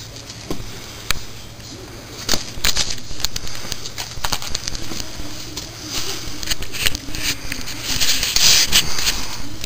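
Scattered light metal clicks and knocks as a transfer case is slid onto the back of a transmission and seated against its freshly sealed gasket. Near the end, clothing rustles close against the microphone.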